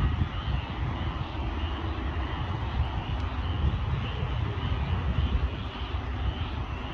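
Steady rumble of heavy rain and wind outdoors over floodwater, with a faint high chirping repeating about twice a second.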